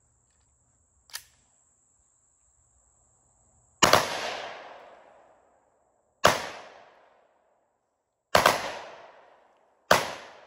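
A 5.7×28mm gun firing four loud shots about two seconds apart, the first about four seconds in. Each shot has an echo that dies away over about a second. A light click comes about a second in.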